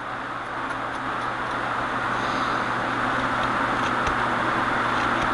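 Vehicle approaching, its steady rushing noise growing gradually louder.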